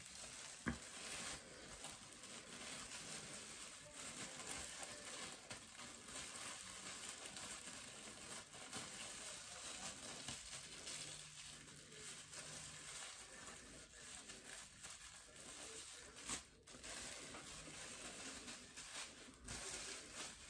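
Thin plastic cape crinkling and rustling continuously as it is twisted and tied around the head like a bonnet.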